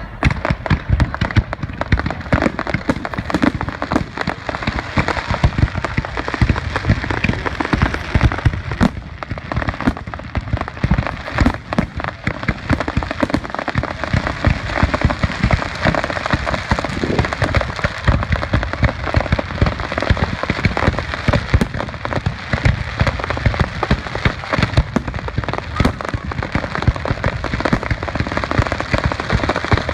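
Fireworks going off in a dense, unbroken barrage of crackles and bangs.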